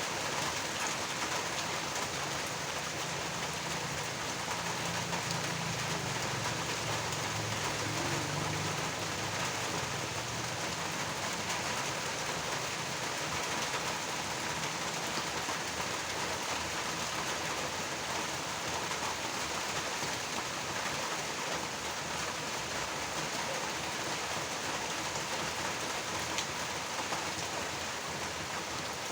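Steady rainfall, with a low rumble of thunder during the first third.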